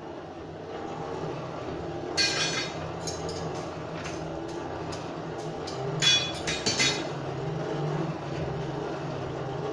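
A blacksmith's forge running with a steady low hum while the steel is taken for another heat, with metal clinking on metal about two seconds in and again around six to seven seconds in.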